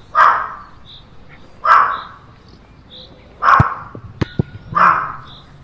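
A dog barking loudly four times, each bark about a second and a half apart.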